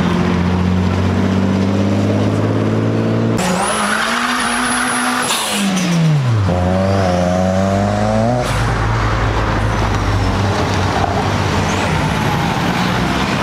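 Car engines revving as cars accelerate away past the roadside one after another. One engine note is held high and then falls away, and another climbs about halfway through. A brief high whistle comes in about three and a half seconds in, and tyre and road noise follows near the end.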